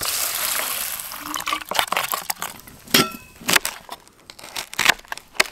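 Dry rice poured from a packet into a metal pot, a rushing hiss in the first second. Then a string of sharp clicks and knocks, with a short metallic ring about three seconds in, as a knife slices Brussels sprouts on a plate.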